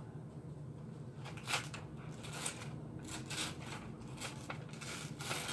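A folded sheet of paper being handled and torn by hand: faint scattered crinkles and rustles, with a longer rustle near the end.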